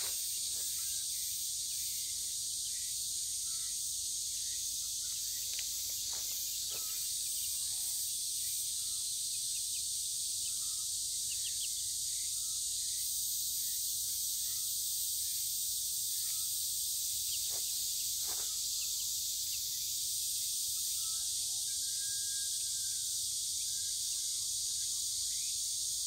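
Steady, high-pitched chorus of cicadas, with short, scattered peeps from young chicks pecking about.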